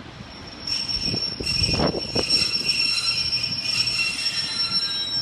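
Wheels of a Class 144 Pacer diesel multiple unit squealing as it runs through the station: a steady high-pitched squeal made of several held tones that sets in about half a second in, with a few clunks from the wheels around one to two seconds in.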